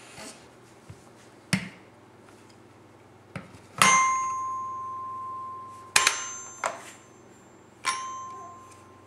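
Toy xylophone's metal bars struck with a mallet: four single notes, each ringing out and slowly fading, mostly on the same pitch, the loudest about four seconds in. A duller knock comes about one and a half seconds in.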